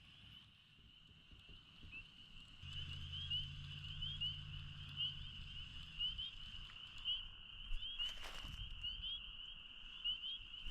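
A steady, high-pitched trilling animal chorus at dusk, faint but constant. A low hum joins from about three to six seconds in, and a brief whoosh comes about eight seconds in.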